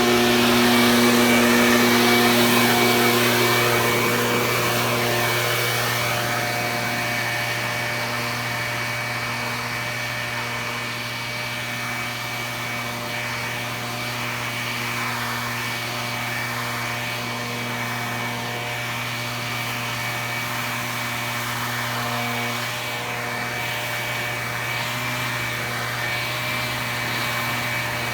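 Small motor of outdoor power equipment running steadily at constant speed, a steady hum with a rush of air or water over it, easing slightly a few seconds in and then holding level.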